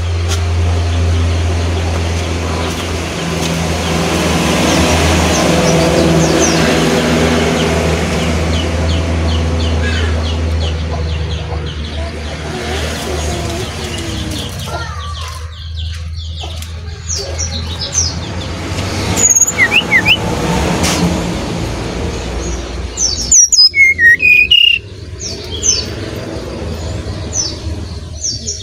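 A low steady rumble, like a vehicle running close by, fills the first half and dies away about 14 seconds in. Then a brown-chested jungle flycatcher sings: scattered high chirps, then from about 23 seconds in a run of loud, short whistled notes.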